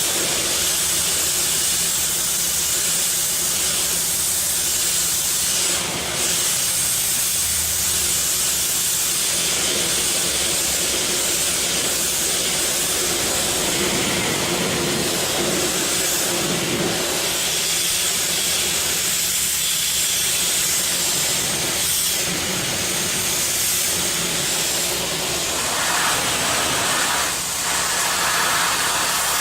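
Fogger running with a steady, continuous hiss over a faint low hum, dipping briefly about six seconds in and again near the end.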